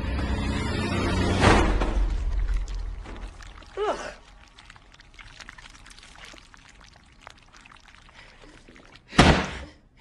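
Horror film sound design: a low rumbling drone builds and breaks off with a thud about a second and a half in. A short gliding pitched sound follows, then a quiet stretch, and a brief loud hit comes just before the end.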